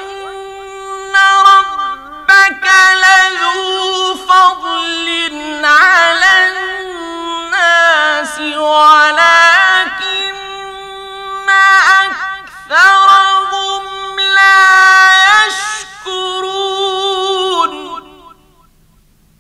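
A man's voice reciting the Quran in the melodic mujawwad style: long, high, ornamented notes with sliding pitch, broken by short pauses, stopping near the end.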